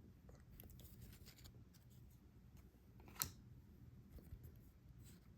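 Near silence with faint handling of trading cards, and one light click about three seconds in.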